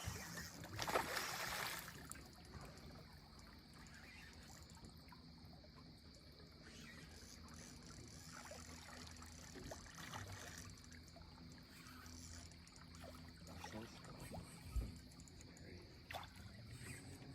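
Faint river ambience from a boat: quiet running water with a few small knocks and clicks, after a brief louder rush of noise at the start.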